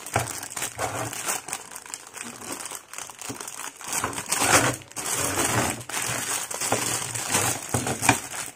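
A clear plastic bag crinkling in irregular bursts as the circuit board sealed inside it is handled and turned over. The loudest crinkles come about four and a half seconds in and again near the end.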